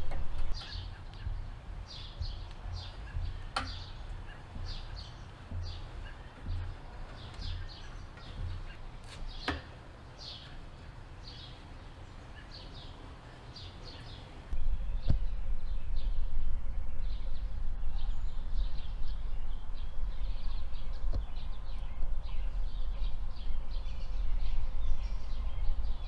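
Birds chirping repeatedly over a low rumble, with two sharp clicks in the first half. About halfway through, the low rumble gets suddenly much louder.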